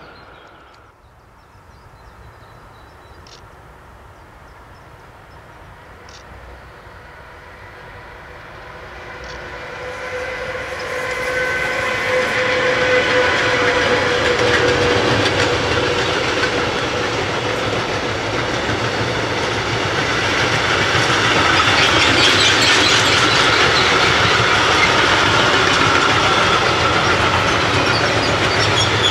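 Freight train of tank wagons approaching and passing close by on electrified track. Faint at first, the noise builds over a few seconds into a loud, steady rumble and clatter of wagon wheels on the rails, with a steady ringing tone running through it.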